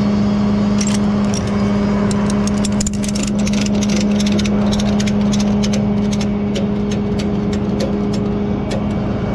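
Tow truck's diesel engine idling at a steady pitch, with a run of irregular sharp clicks and ticks in the middle.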